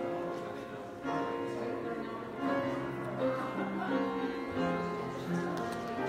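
Slow instrumental keyboard music, with sustained notes and chords that change every half second or so.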